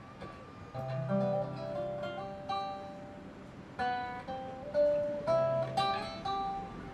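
Acoustic guitars playing an instrumental piece, picked notes ringing out; the playing starts under a second in after a quiet lead-in.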